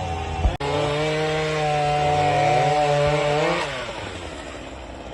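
Chainsaw running at high revs, its pitch wavering as it works, then easing off to a lower, rougher sound about three and a half seconds in.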